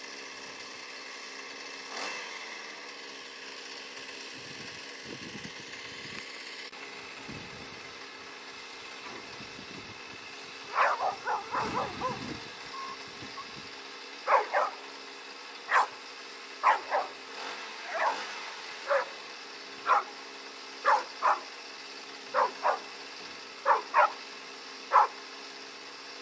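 American Staffordshire terrier barking repeatedly, starting about halfway through with a quick run of barks and then settling into roughly one bark a second. It is a rescue dog's bark indication, given while it stays at a spot in the rubble where a hidden person lies.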